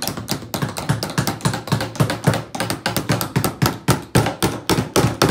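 Several small hammers tapping nails through bottle caps into wooden boards: a quick, irregular clatter of overlapping taps, several a second.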